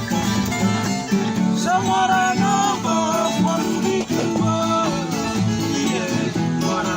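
Papua New Guinea string band music: plucked and strummed acoustic guitars over a steady bass line, with voices singing together from about two seconds in.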